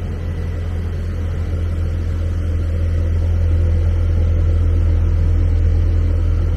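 Stock single-exit exhaust of a 2019–2023 Ford Ranger with the 2.3 L four-cylinder, the engine running steadily: a quiet, even low drone from the tailpipe that grows a little louder a couple of seconds in.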